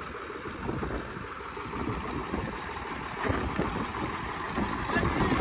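Two diesel farm tractors chained together in a pulling contest, their engines running hard under load. The engine sound grows louder toward the end.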